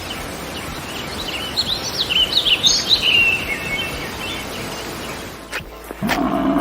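Small birds chirping, a burst of quick high up-and-down calls a couple of seconds long, over a steady outdoor noise haze. Near the end a louder, low drawn-out sound cuts in.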